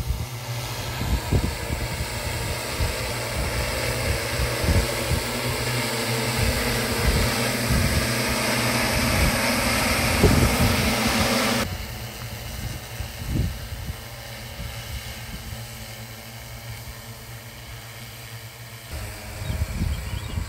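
Multirotor crop-spraying drone's propellers running in a steady hum with a hiss over it, loud until a little past halfway, then suddenly quieter and more distant. Low gusts of wind buffet the microphone, most near the end.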